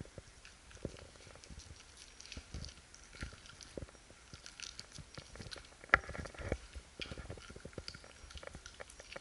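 Husky-type dog eating from a stainless steel bowl: irregular licking, chewing and clicking of teeth and tongue against the metal, with one louder clank of the bowl about six seconds in.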